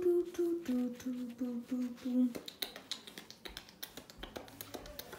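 Mouth beatboxing: a held hummed note, then five short hummed notes in a row, with sharp mouth clicks and pops running through and carrying on alone for the last couple of seconds.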